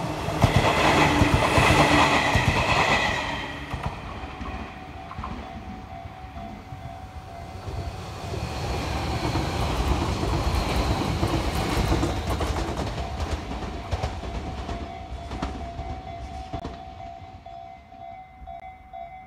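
Two Tobu electric trains going by on adjacent tracks: first a commuter train passing in the first few seconds with a loud high-pitched tone over it, then a 500-series Revaty limited express passing close about eight to fourteen seconds in, its wheels clicking over the rail joints. The sound fades away near the end.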